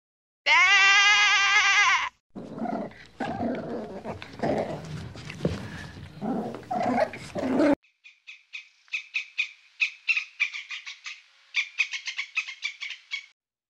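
A string of different animal calls: a sheep's bleat, then several seconds of rough low grunting and growling, then a fast run of short high chirps near the end.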